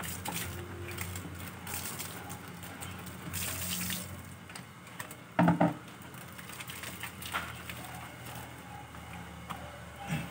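Water running and splashing as a wet, soapy dog is scrubbed and hosed down, with hands rubbing through lathered fur. About halfway through there is one short, louder sound.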